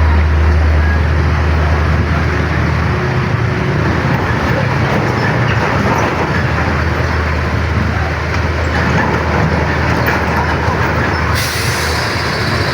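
Road traffic noise: heavy vehicle engines running with tyre and road noise, a steady low engine hum strongest in the first couple of seconds. A higher hiss comes in suddenly near the end.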